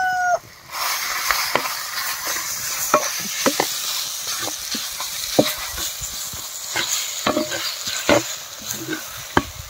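Tomatoes, onions and roasted brinjal frying in oil in an earthenware pot, a steady sizzle with scattered scrapes and knocks as a wooden masher mashes and stirs the mixture against the pot. The end of a rooster's crow is heard in the first half second.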